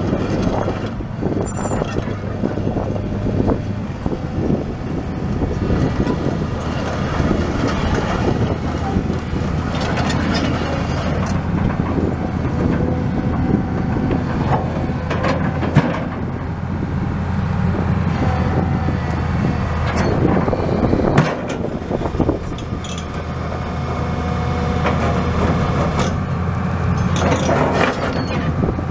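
Cummins 8.3-litre six-cylinder diesel of a 1994 Hyundai Robex 290LC excavator running steadily while the boom, arm and bucket are worked hydraulically. The engine note shifts in pitch a few times as the hydraulics load it, with short bursts of hiss and occasional knocks.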